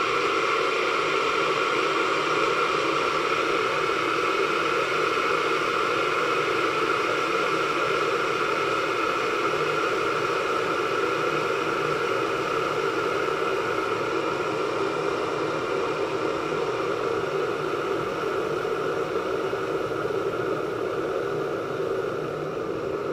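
Russell Hobbs 23911 stainless steel electric kettle heating one cup of water toward the boil: a steady, pretty aggressive rushing hiss of the water heating against the element, growing slightly quieter near the end.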